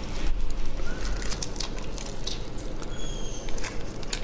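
Wet crackling and clicking of a large marinated tiger prawn's shell being twisted and broken by gloved hands at the head.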